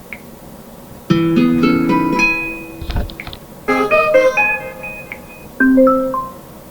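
LG G2 smartphone notification tones played one after another: three short chimes of several clear notes each, separated by brief pauses, the last a quick falling run. A soft thump comes between the first two chimes.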